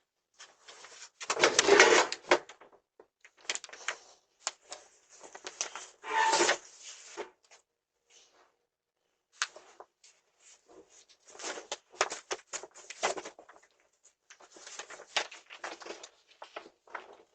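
Irregular clattering and rustling: clusters of sharp clicks and rattles, with two louder bursts about a second and a half in and about six seconds in.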